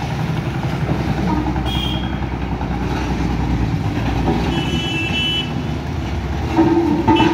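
Road traffic: motorcycle and vehicle engines running with a steady low rumble, and vehicle horns tooting briefly about two seconds in and again for about a second around five seconds.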